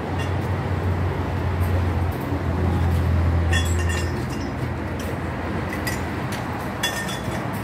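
Light metallic clinks of bicycle parts, a pair about three and a half seconds in and another pair near the end, over a steady low background rumble that eases off about four seconds in.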